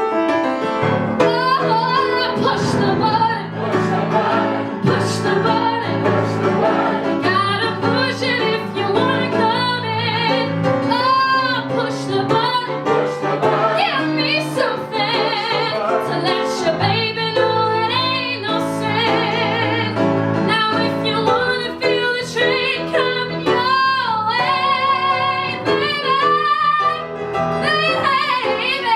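A woman singing a musical-theatre number over instrumental accompaniment, with held notes in vibrato and quick melodic runs.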